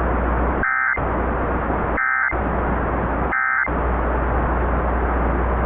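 Emergency Alert System end-of-message data bursts: three short warbling digital tone bursts about a second apart, sounding the close of the alert. Between them runs steady radio static with a low hum.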